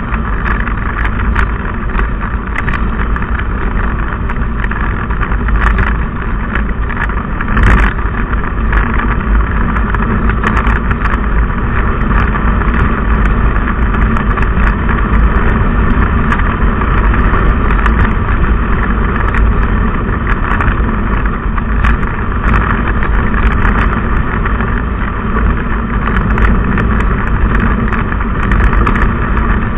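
Steady running noise of a vehicle driving along at road speed, heard on board: engine drone with road and wind noise, dotted with short crackles.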